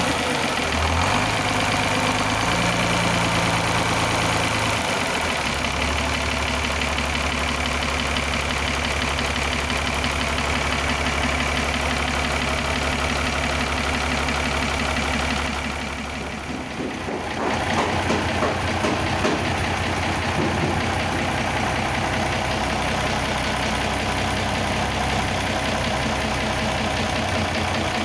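Mercedes-Benz 917 truck's diesel engine idling steadily with its valve cover off and the rocker gear exposed, while the valve clearances are being set. The sound dips briefly a little past halfway, then runs on as before.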